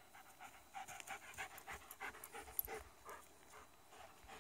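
German Shepherd dog panting rapidly, about five short breaths a second, fading near the end.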